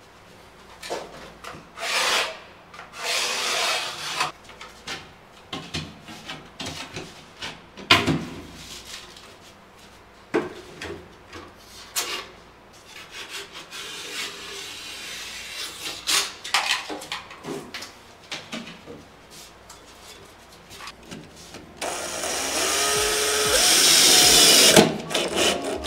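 Drywall being cut and trimmed by hand: irregular scraping, rasping and knocks of a blade working gypsum board edges and panels being handled. Near the end a cordless drill drives screws into the drywall, its motor whine rising and falling for about three seconds.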